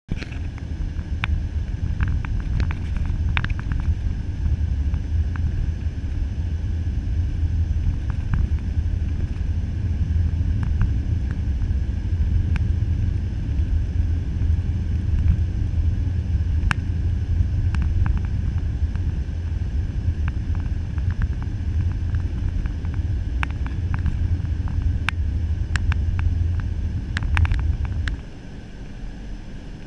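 Steady low rumble of road and engine noise from a car driving on a snowy road, heard inside the cabin, with scattered light clicks and ticks. The rumble drops suddenly near the end.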